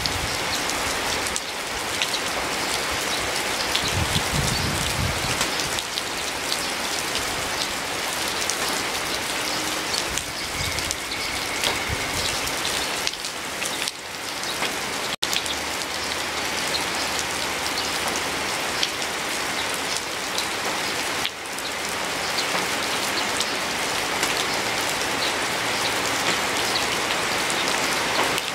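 Steady heavy rain falling on a garden and pouring off a roof edge: a dense, even hiss dotted with individual drop ticks. The sound cuts out for an instant about halfway through.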